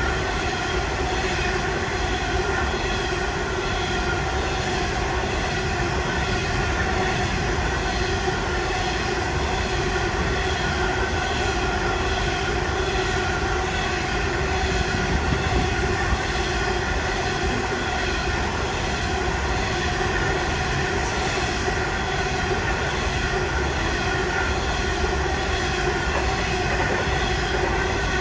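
Coal train's hopper wagons rolling past close by at steady speed: a continuous rumble of steel wheels on the rails, with steady whining tones over it.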